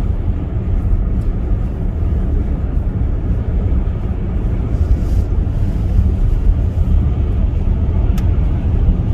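Steady low rumble of road and wind noise inside a car cabin, from a car driving at moderate speed on a snow-covered, slick expressway.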